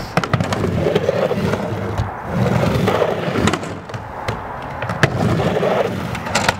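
Skateboard wheels rolling up and down a wooden plywood mini ramp with a hollow rumble that swells and fades. Several sharp clacks come from the board and trucks hitting the coping and landing back on the ramp.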